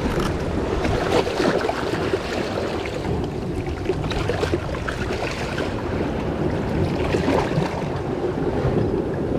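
Water washing and splashing around rocks, with wind buffeting the microphone.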